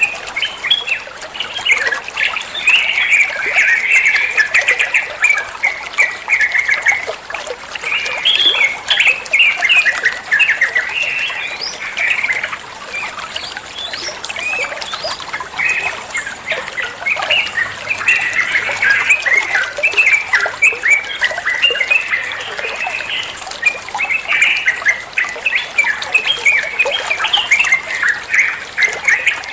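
Yellow-vented bulbul (trucukan) singing: a continuous run of rapid, bubbly chattering notes.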